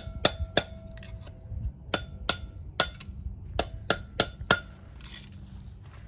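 Hammer blows on metal, about ten sharp strikes in quick groups of two to four, each ringing briefly.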